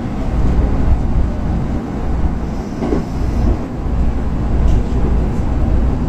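Electric train running on the rails, heard inside the driver's cab: a steady low rumble of wheels and running gear, with a couple of light clicks near the end.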